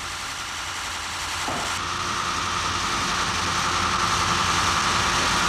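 Huge carpet cropping machine running along a wool carpet, shearing the pile level. A steady mechanical noise grows louder, and a high whine joins about a second and a half in.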